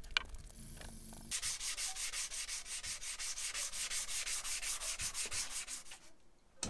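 Steel hammer head being hand-sanded with abrasive paper: quick rasping back-and-forth strokes, about six a second, beginning a little over a second in and stopping near the end. A light tick comes just before the sanding starts.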